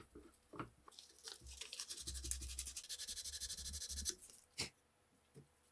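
Rapid back-and-forth scratching of 180-grit sandpaper rubbed on a small block of wood, lasting about three seconds. A few light handling clicks come before it and a single sharp knock just after it stops.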